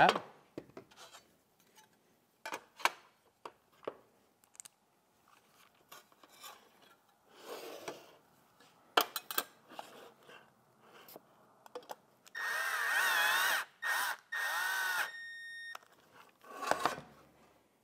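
Cordless drill-driver tightening a screw through the sheet-metal grit guard parts: a few light clicks and clinks of handling the parts, then the driver's motor whines in three short runs about two-thirds of the way in, trailing off into a thinner steady whine.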